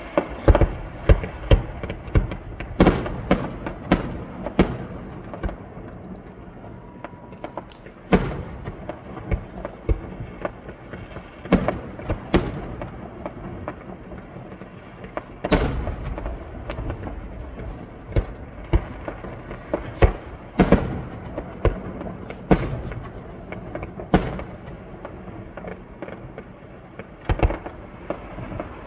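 Fireworks display: aerial shells bursting in an irregular run of sharp booms and bangs, several coming in quick clusters.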